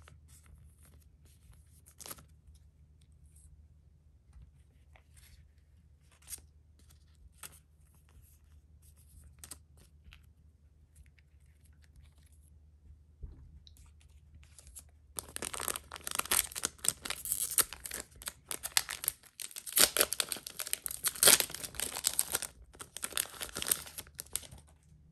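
Faint clicks and plastic rustles as a trading card is slipped into a clear sleeve and set down, then, about fifteen seconds in, a foil Cardfight!! Vanguard booster pack torn open by hand and its wrapper crinkled, a dense crackling with a short break in the middle.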